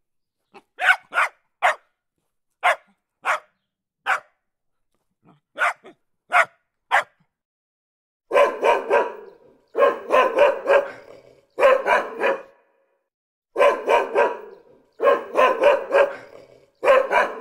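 Dog barking: single sharp barks spaced about half a second to a second apart for the first eight seconds, then six short runs of rapid barking, each about a second long, with pauses between.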